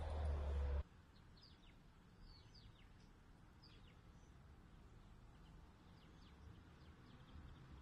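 A loud low rumble cuts off abruptly under a second in. After it come faint, short chirps of small birds, each a quick downward sweep, scattered over a quiet background.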